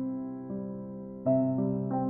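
Soft background piano music: slow sustained chords, a new chord struck about half a second in and another, louder, a little past the middle.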